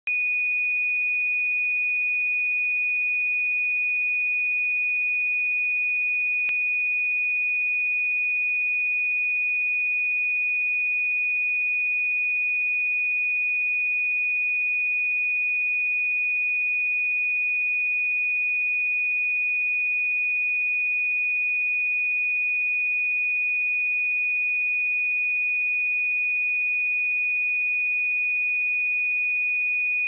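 A 2471 Hz sine-wave test tone: one pure, steady high tone that does not change.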